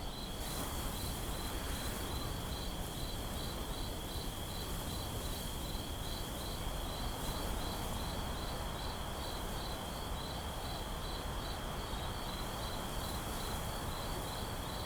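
Night ambience of crickets: one steady high trill alongside another chirping about two to three times a second, over a faint hiss.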